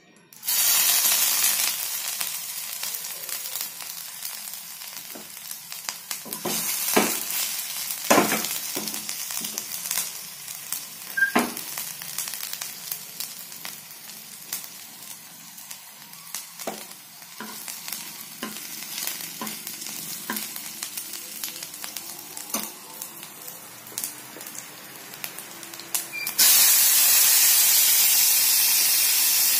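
Cumin seeds, dried red chillies and a bay leaf sizzling in hot oil in a frying pan, easing off, with scattered sharp pops and crackles as the seeds splutter. About 26 seconds in, tomato pieces hit the oil and set off a sudden, louder, steady hissing sizzle.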